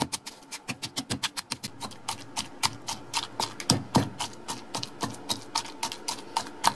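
Stone mortar and pestle pounding a wet chilli, garlic and shrimp-paste mixture: a steady run of quick knocks, about six a second, as the pestle strikes into the paste in the stone bowl.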